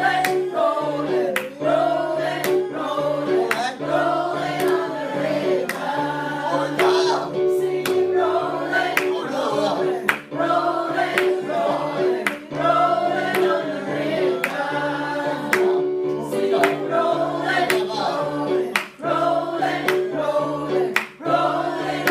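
A mixed choir of men and women singing an upbeat song together over accompaniment with a steady bass line and a regular beat.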